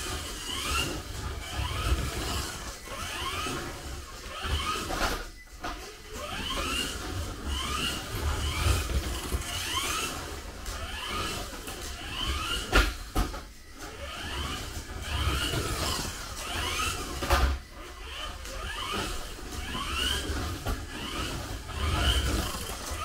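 Kyosho Mini-Z radio-controlled car running laps: its small electric motor whines in short rising sweeps about once a second, with a few sharp knocks along the way.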